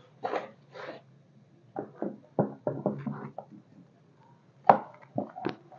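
Irregular light knocks and taps of kitchen work with dough and utensils: a quick run of them in the middle and a few more near the end, over a faint steady low hum.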